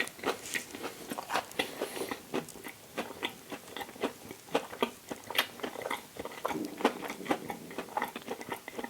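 Close-miked chewing and biting of a toasted English muffin breakfast sandwich with a vegan sausage patty and cheese: irregular wet mouth clicks and light crunches, several a second.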